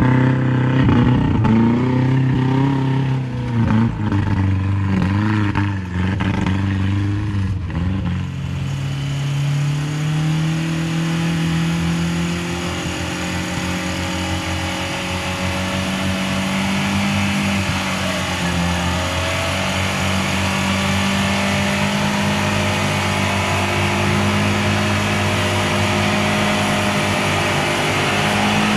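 Off-road 4x4 vehicle's engine working hard, revving up and down for the first eight seconds or so, then pulling at a steady pitch that slowly rises.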